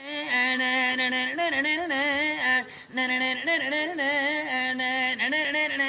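A man singing unaccompanied in Turkish folk style, drawing out long held notes with wavering, ornamented turns in two phrases with a short breath between them.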